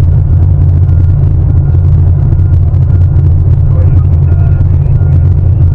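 Heavy diesel engine of a Sany 750 hydraulic excavator running, a loud, steady low drone.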